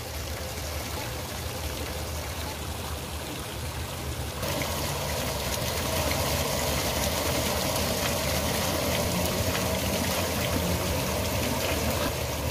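Water from an artificial rock waterfall splashing and trickling into its pool, a steady rushing noise with a low hum underneath. It gets louder about four seconds in.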